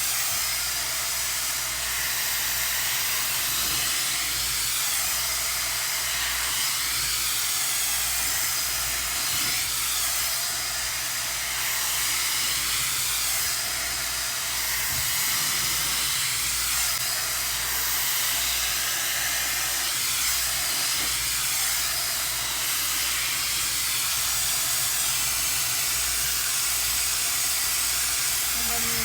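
High-speed hair dryer wand blowing air, a steady hiss of rushing air over a low motor hum.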